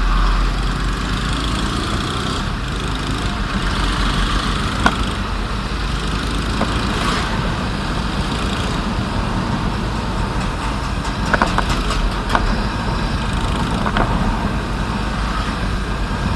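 Motor scooter riding along a rough road, heard through the phone's built-in microphone: steady engine and road noise with a strong low rumble, and a few sharp knocks about 5, 11 to 12 and 14 seconds in.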